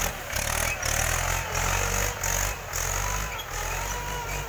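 Mahindra 415 DI tractor's four-cylinder diesel engine running as the tractor drives over heaped paddy straw, treading it to thresh the rice. The engine's low drone rises and falls slightly in loudness every half second or so.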